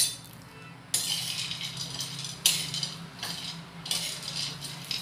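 Metal spatula stirring roasting peanuts on an iron tawa: a sharp tap at the start, then, after about a second, three long scraping strokes of metal on iron with the nuts rattling.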